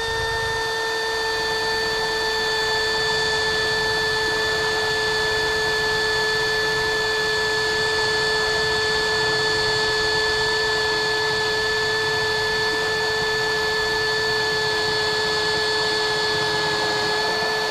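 Milwaukee cordless drill running steadily under load as a cobalt twist bit bores through quarter-inch steel without a pilot hole: a steady, high-pitched whine that holds its pitch, dipping slightly just before the drill stops.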